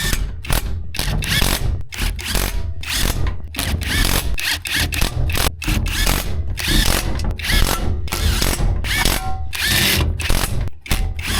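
Impact gun driving intake manifold bolts, a short burst on each bolt (one "ugga" apiece) in a star pattern, making a quick run of brief rattling bursts with short gaps between.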